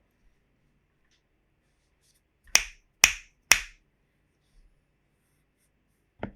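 Three loud, sharp snaps about half a second apart, then a quick run of clicks near the end from a mechanical keyboard with lubed Gateron Yellow linear switches being typed on.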